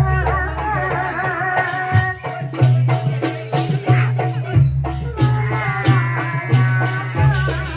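Live jaranan music: a wavering, ornamented melody over regular drum and rattle strokes, with deep low tones sounding in long repeating pulses.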